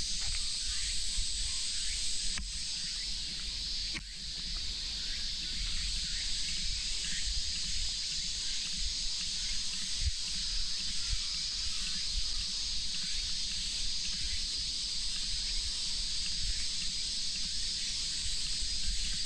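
Steady, dense chorus of summer cicadas, a continuous high buzzing hiss, with a low rumble underneath.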